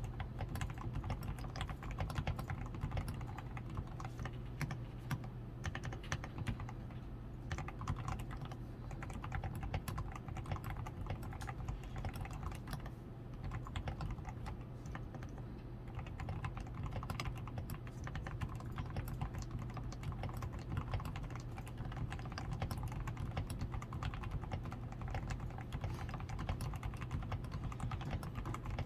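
Continuous typing on a DAREU A87 Pro mechanical keyboard: a steady, dense stream of keystrokes with a low steady hum underneath. The keyboard has fully lubed switches (Krytox 105), a PCB tape mod, foam in the switches, XDA keycaps and lubed stabilizers.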